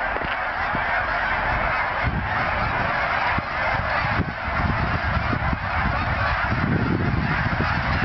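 A large flock of geese flying overhead, honking without a break, many calls overlapping into one dense clamour.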